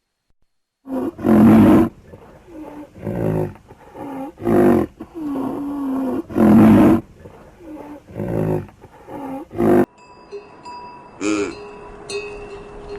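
Lion roaring: a series of about nine loud, deep, pitched calls, each under a second long. Near the end it cuts off abruptly to a quieter sound with steady ringing tones.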